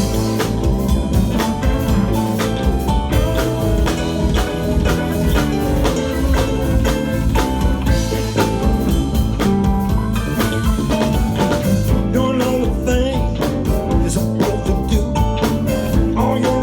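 Live blues band playing an instrumental break, with drum kit and guitar.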